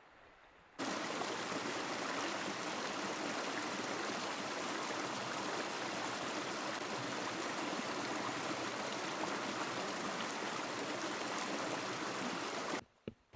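Steady rush of running water. It cuts in suddenly about a second in and stops abruptly just before the end.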